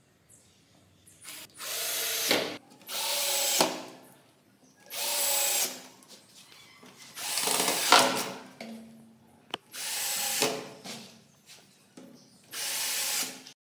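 Cordless drill driving screws through a metal piano hinge into a laminated board, running in six short bursts of about a second each with pauses between.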